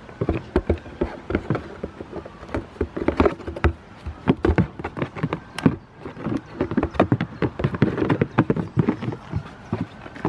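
Goat hooves clattering and knocking on hollow plastic tubs as two small goats shift about and jostle on them: quick, irregular taps and knocks.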